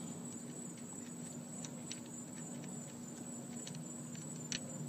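Faint scattered clicks and rubbing of gloved fingers handling a small plastic fuel-line retaining clip, the sharpest click about four and a half seconds in, over a steady low hum.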